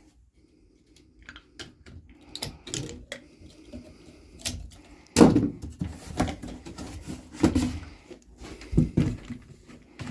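Plastic gallon jugs of RV antifreeze being handled and their caps opened: a string of clicks and knocks, the loudest a thump about five seconds in.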